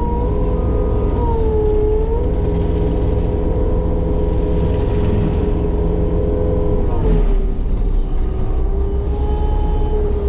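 Compact track loader running a Fecon forestry mulching head: a steady high whine from the spinning mulcher over the diesel engine's low rumble. The whine dips in pitch briefly about two seconds in and drops lower again about seven seconds in.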